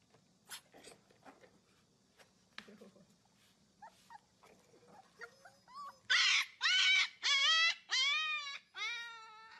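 A run of about six short, high-pitched whining cries from a pet animal in quick succession, starting about six seconds in, after a few faint clicks.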